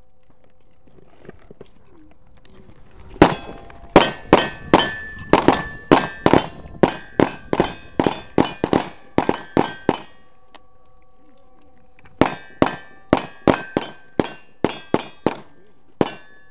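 Two rapid strings of handgun shots at steel targets, each sharp crack followed by a ring from the steel plates. The first string is about twenty shots in under seven seconds. After a pause of about two seconds comes a second string of about a dozen.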